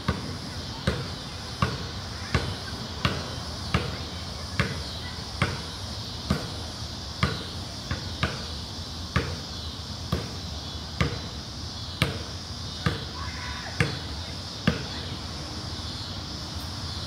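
Basketball dribbled on a concrete court, one bounce a little under every second in a steady rhythm. The dribbling stops about fifteen seconds in, when the ball is taken up for a shot.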